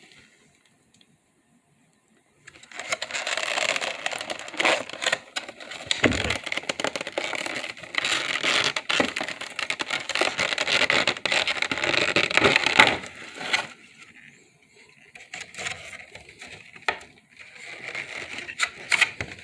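Crinkling and rustling of the box's plastic and cardboard packaging being handled, dense with small crackles for about ten seconds after a short quiet start, then lighter scattered rustles and clicks.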